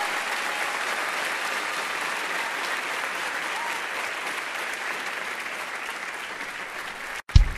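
Live concert audience applauding, fading slowly, then cut off abruptly near the end as a loud drum kit hit starts the next song.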